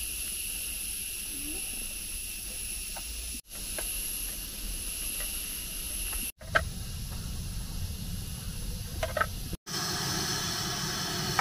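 Forest ambience: a steady high-pitched insect drone with a few short, faint bird calls. About ten seconds in it cuts to curry simmering in a pan, a steady hiss.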